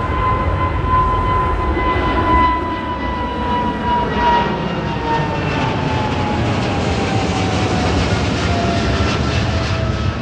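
Twin-engine jet airliner climbing out overhead just after takeoff: a loud, steady jet roar with an engine whine that slowly falls in pitch as the aircraft passes over and moves away.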